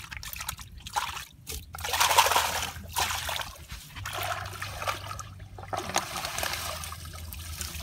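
Muddy water splashing and trickling as hands scoop and stir in a shallow dug fishing pit, in irregular bursts, loudest about two seconds in.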